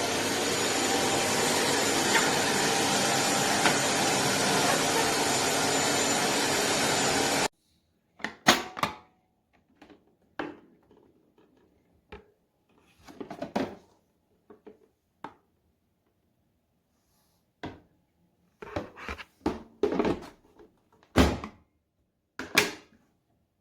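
Philips Series 9000 bagless vacuum cleaner running with a steady high whine over its airflow noise, cutting off suddenly about seven and a half seconds in. Scattered knocks and clicks follow.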